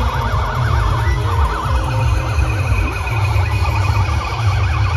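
Loud band music with heavy, pulsing bass and a high melody line that warbles rapidly up and down like a siren.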